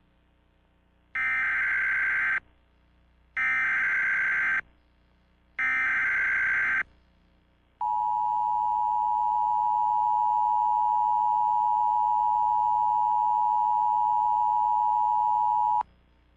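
Emergency Alert System tones: three bursts of the SAME digital data header, each about a second long, followed by the two-tone EAS attention signal held steady for about eight seconds before it cuts off. The sequence announces an emergency alert broadcast.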